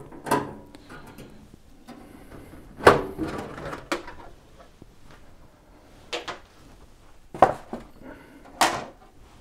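Screwdriver and sheet-metal side panel of a budget midi-tower PC case being handled: several separate sharp knocks and clatters as the panel is unscrewed, slid off and set down. The loudest knock comes about three seconds in.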